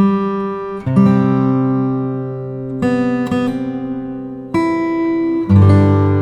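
Background music: acoustic guitar chords, each strummed and left to ring out, a new chord about every one to two seconds.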